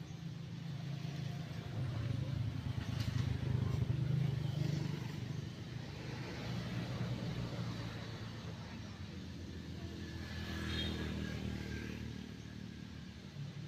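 A motor vehicle's engine running, a steady low hum that swells about two to four seconds in, eases off, and swells again around ten seconds.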